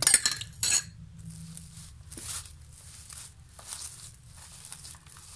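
A metal spoon clinks sharply twice within the first second. Then hands squish and knead a moist mixture of minced chicken and chana dal in a steel bowl, giving soft, irregular wet rustles.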